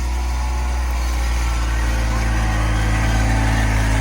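A motor vehicle's engine idling steadily, a loud, even low hum.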